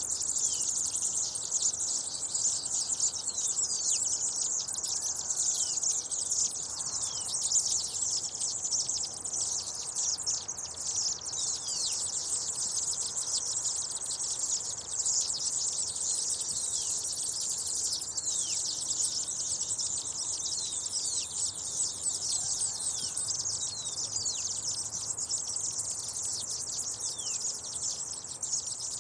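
A flock of seedeaters (espigueros) chirping together in a dense, unbroken chatter of many short, high-pitched notes, many of them quick downward slides.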